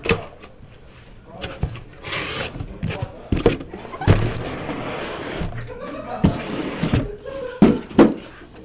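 Cardboard shipping case being opened and handled: a short rasping scrape about two seconds in, then cardboard flaps and boxes rubbing and sliding against each other, with scattered knocks and two sharp ones near the end.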